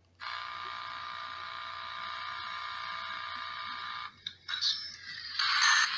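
A PanaBox, a handheld pocket radio used as a spirit box with foil on its corner, starting up. A steady buzzing tone runs for about four seconds and cuts off; a few clicks follow, then loud hissing radio static from about five and a half seconds in.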